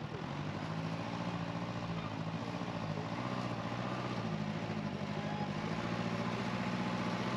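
Heavy diesel engine of earthmoving machinery running steadily, growing slightly louder through the stretch.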